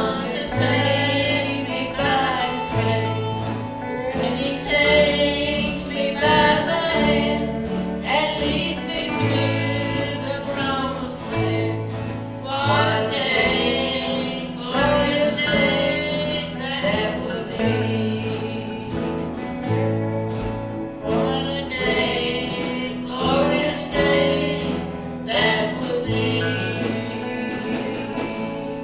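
Gospel song sung with instrumental accompaniment: sung melody over a steady beat and a bass line.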